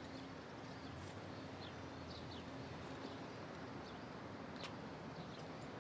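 Steady outdoor background noise with a faint low hum, and a few short, faint bird chirps scattered through it. A single sharp tick about four and a half seconds in.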